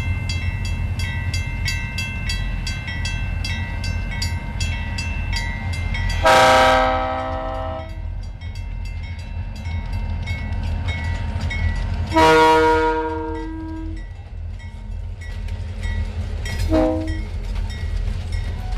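Pan Am Railways diesel locomotive sounding its air horn for a grade crossing: two long blasts and then a short one, part of the long-long-short-long crossing signal, over a steady low engine rumble. Throughout, a crossing bell dings about twice a second.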